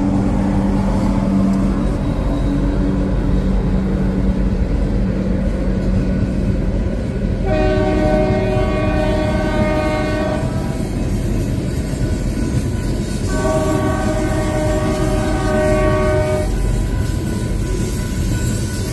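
Freight train's coal cars rolling past with a steady heavy rumble and wheel clatter, as the diesel locomotive's engine drone fades within the first couple of seconds. A multi-tone train horn sounds two long blasts of about three seconds each, the first about seven seconds in and the second about thirteen seconds in.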